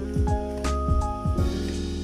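Background instrumental music with held notes and a low beat.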